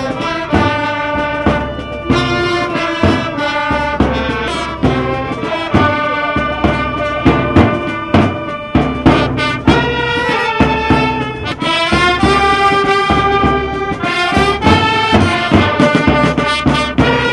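Military wind band playing, with clarinets, trumpets and tuba carrying sustained melody notes over a steady beat.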